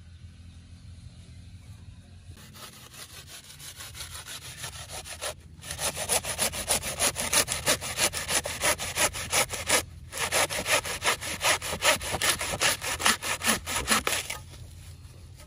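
Hand saw cutting through the husk of a green coconut in quick back-and-forth strokes. They start faint, turn loud about five seconds in, pause briefly partway through, and stop a second before the end.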